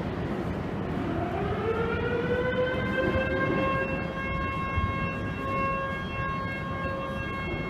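Federal Signal Model 2 electromechanical factory siren heard from far off, winding up in pitch over the first two seconds or so and then holding one steady tone, during its test.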